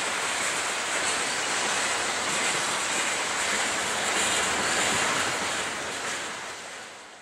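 Steady rolling noise of a long freight train's cars passing on the rails, mixed with wind on the microphone; it fades away near the end.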